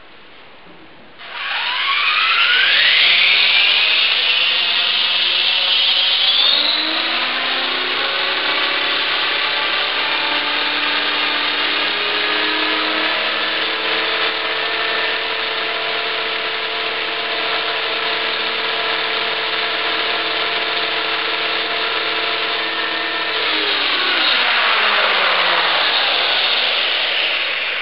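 HK 450 electric RC helicopter spooling up on the ground: a whine rises in pitch about a second in as the motor, gears and rotor come up to speed, runs steadily, then falls in pitch as it winds down over the last few seconds. It is being run for a tail-rotor test.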